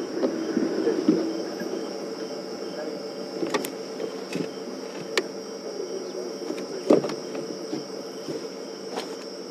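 Crickets trilling steadily, with a low hum underneath and a few scattered clicks, the loudest about seven seconds in.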